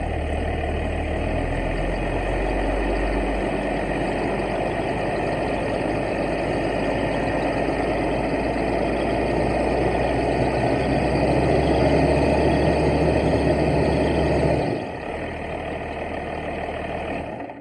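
Excavator's diesel engine running steadily, a little louder through the middle, then dropping to a quieter, lower run about fifteen seconds in.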